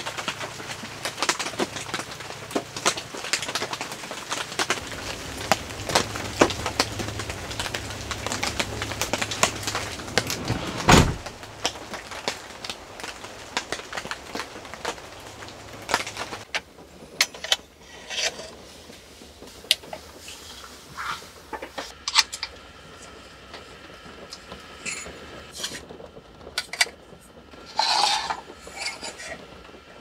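A dog eating from a metal bowl: rapid clinks and crunches against the bowl, with one loud knock about eleven seconds in. After about sixteen seconds this gives way to scattered raindrops tapping on a car.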